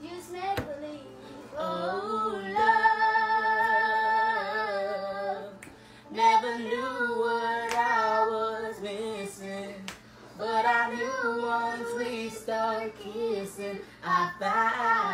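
A woman and a girl singing in turn, holding long notes with a wavering pitch, in three or four phrases with short breaks between them.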